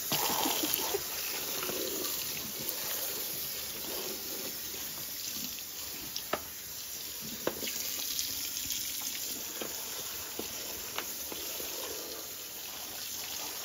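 Kitchen tap running steadily into a sink as an oven liner is rinsed clean, with a few faint knocks from the liner being handled. The water comes on suddenly at the start.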